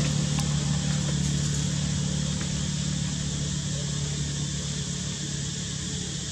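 A steady low engine drone with a hiss over it, slowly fading.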